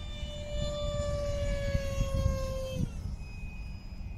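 Electric ducted fan of a Top RC Hobby Jet Star RC jet whining in flight. Its pitch slides slowly down, then drops and fades about three seconds in. Wind rumbles on the microphone.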